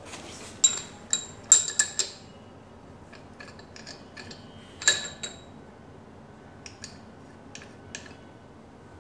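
High-carbon-steel specimen rod clinking against the steel Johnson shear tool as it is slid into the tool's holes. Several sharp, briefly ringing clinks come in the first two seconds, another pair about five seconds in, then a few fainter ticks.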